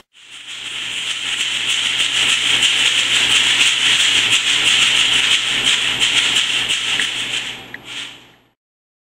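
Homemade rain sticks made from discarded tubes being tipped, the filling trickling through them in a steady rain-like hiss full of fine clicks. It swells just after the start and fades away about eight and a half seconds in as the grains run out.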